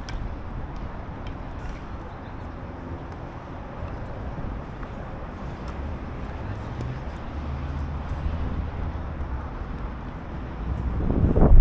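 Outdoor background noise: a steady low rumble with a few faint ticks, swelling to a loud low rumble near the end.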